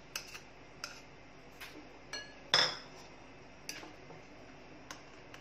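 Spoon clinking against a glass bowl in uneven taps while raw eggs and chopped vegetables are stirred together. The loudest clink comes about two and a half seconds in.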